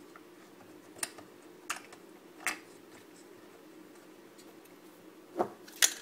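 Small hard plastic parts of a Mercedes COMAND control knob unit clicking and tapping as they are fitted together by hand: a few separate sharp clicks, the two loudest near the end, over a faint steady hum.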